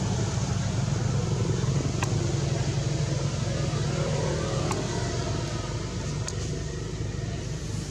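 A steady low rumble, with a few faint clicks about two, five and six seconds in.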